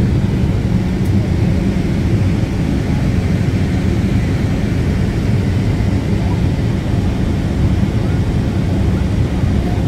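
Jet airliner cabin noise in flight shortly after takeoff: the engines and airflow make a loud, steady, deep drone.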